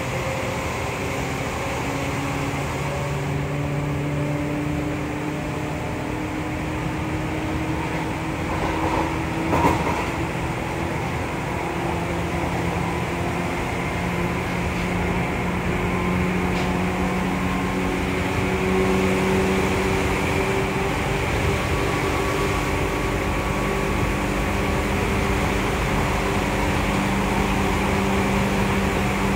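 Seibu 2000-series electric train running, heard inside the passenger car: hum tones from its field-chopper-controlled traction motors that slowly shift in pitch, over wheel-and-rail rumble. A brief louder noise stands out about ten seconds in, and the running sound grows slightly louder in the second half.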